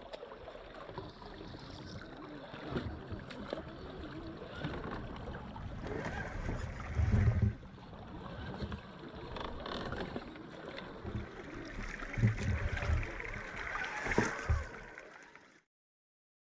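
Shallow creek water running and splashing as a Traxxas TRX-4 Sport RC crawler drives through it at wheel-axle depth, with a few short low thumps along the way. The sound cuts off about a second before the end.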